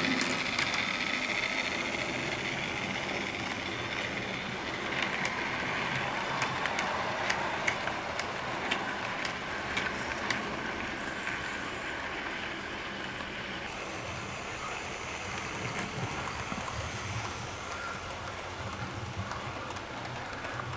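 HO scale model trains running on the track: a steady rushing hiss of wheels and motors, with many irregular small clicks of wheels over the rails, most of them between about five and eleven seconds in.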